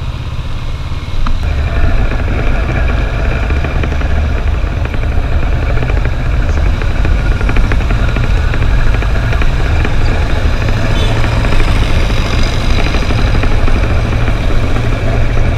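Kawasaki Versys motorcycle running at low speed through town, engine and road noise under a heavy low rumble.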